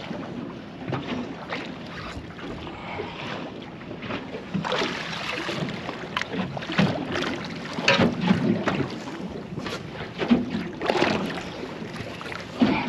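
Sea water slapping and lapping against the side of a small boat, with wind gusting on the microphone: an uneven rushing noise broken by irregular sharper splashes.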